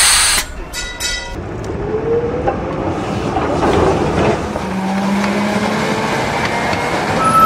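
Tram moving off from a stop: a short loud hiss at the start, then the tram running along the rails with a rolling rumble and a motor whine that rises and falls in pitch.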